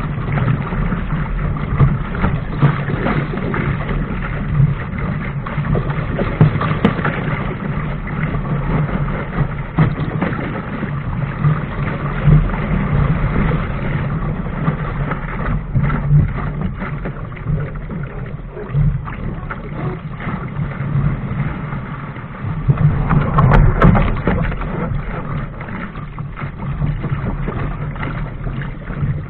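Wind buffeting the camera microphone and water rushing and splashing along the hull of a sailing dinghy moving fast through choppy water. There is a louder rush about three-quarters of the way through.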